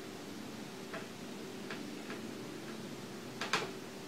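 Small Phillips screwdriver driving tiny screws into a laptop's screen assembly, giving a few faint ticks. Near the end come two sharper clicks close together.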